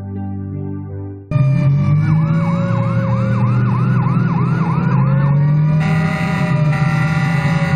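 Piano music breaks off about a second in, and a fire-engine siren starts suddenly over a steady engine drone. The siren wails quickly up and down, about two to three times a second, then changes to held steady tones near the end.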